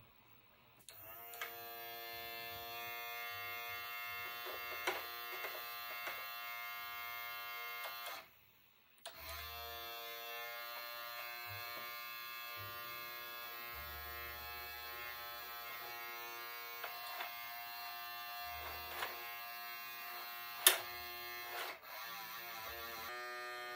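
Steady electrical buzz from an opened RCA SJT100 CED VideoDisc player running with its drive belt missing, cutting out briefly about a third of the way through. A few sharp clicks from hands working the mechanism, the loudest near the end.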